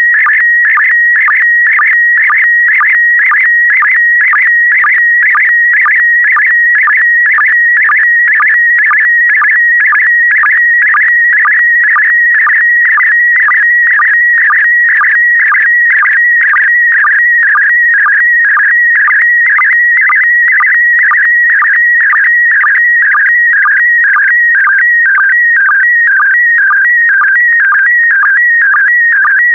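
Slow-scan TV image signal in PD120 mode: a loud, warbling electronic tone around 2 kHz whose pitch shifts as it carries picture data, broken by a short lower sync beep about twice a second, one beep per scan line pair.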